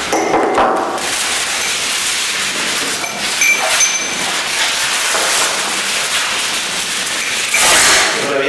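Plastic wrapping and polystyrene foam packaging being handled, rustling and crackling, louder near the end.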